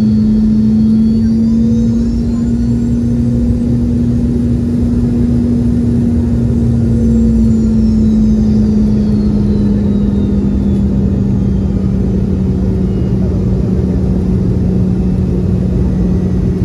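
Cabin noise of a Boeing 717-200 in flight: a loud, steady drone of jet engines and rushing air, with a low hum that eases slightly lower in pitch about halfway through and faint high whines falling in pitch.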